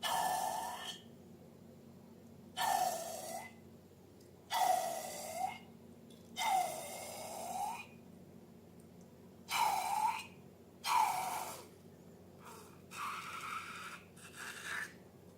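Slime being squeezed and squished with balloons: a run of about nine short, airy squishing bursts with brief pauses between them.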